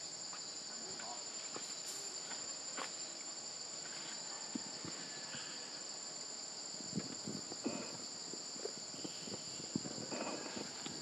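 Steady high-pitched drone of forest insects, holding two pitches without a break, with scattered rustling and light knocks of movement in the second half.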